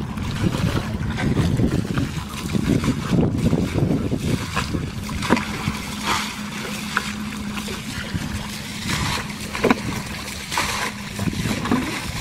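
Muddy water sloshing and splashing as a shallow pool is bailed out with a plastic bucket and scooped by hand, water thrown out in repeated splashes, over a steady low rumble.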